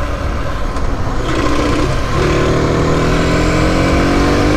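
Mondial SMX 125i supermoto's single-cylinder engine accelerating, its pitch climbing steadily through the second half after a short break about two seconds in, with wind rushing on the helmet microphone.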